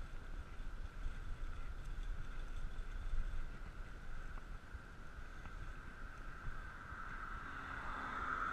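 Bicycle ride noise: wind buffeting the microphone, with a low rumble and a steady high-pitched hum that grows louder near the end.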